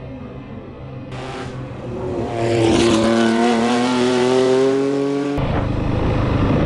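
Yamaha WR450F single-cylinder four-stroke dirt bike engine being ridden. It runs low at first, then from about two seconds in revs up loud under acceleration with a slowly rising pitch. The sound changes abruptly near the end.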